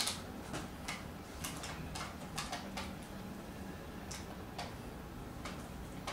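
Irregular light clicks and taps as a toddler's hand handles a boxed plastic toy tow truck, its cardboard and plastic window.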